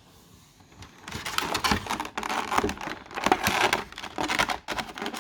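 Packaging rustling and crinkling in bursts as a pair of headphones is pulled out of its box and wrapping, starting about a second in.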